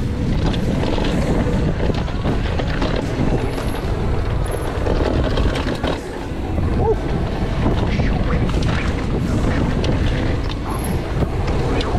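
Wind buffeting the microphone while a mountain bike rolls fast over a packed-dirt trail, with steady tyre noise and scattered clattering from the bike.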